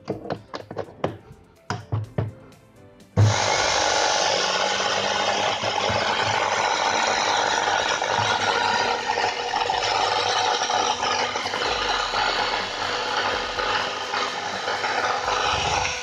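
A few short clicks and knocks, then about three seconds in an IFB front-load washing machine's brushed motor is switched on and runs loudly and steadily at high speed, wired to turn in the reverse direction. The motor has been judged faulty, with heavy sparking from the armature.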